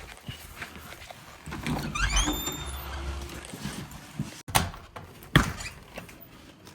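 A door being opened and shut: a short squeaky chirp from the door, then two sharp latch clicks about four and a half and five and a half seconds in.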